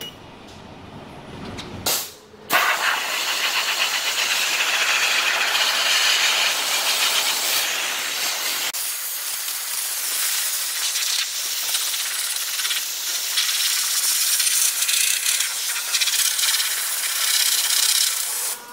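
Monair hybrid steam cleaner's wand jetting steam in a loud, steady hiss, starting about two and a half seconds in after a brief first burst. The lower part of the hiss drops away about halfway through.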